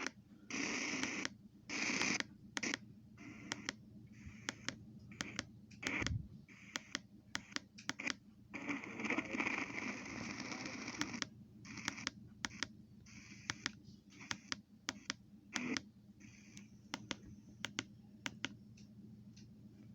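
Radio static with crackle: patches of hiss cut in and out abruptly every second or so, over a steady low hum and peppered with many sharp clicks.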